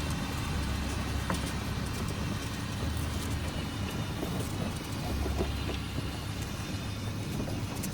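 John Deere 7320 tractor's diesel engine running steadily with a low drone, with light clicks and rattles over it.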